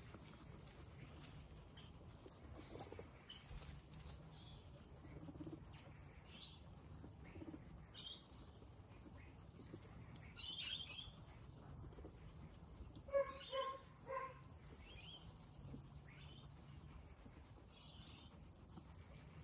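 Faint munching and straw rustling from a large group of guinea pigs feeding on grass and carrot slices. A few short high chirps come through, and a little past the middle there are three quick pitched calls.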